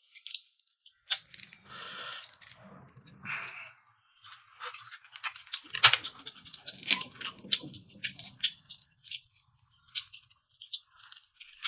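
Cooked shrimp being peeled by hand: the shell crackles and snaps in many quick clicks, thickest in the second half, after a softer rustling at the start.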